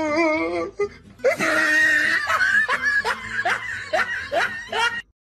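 A person laughing hard: a wavering drawn-out laugh, then a loud burst about a second in, followed by a run of quick laughs about three a second that cuts off abruptly near the end.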